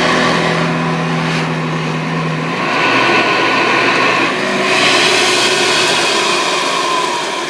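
Hoover upright vacuum cleaner with a beater-bar agitator running loud and steady on carpet, its motor pitch shifting a little and dropping slightly near the end. It keeps running because a shorted switch won't turn it off.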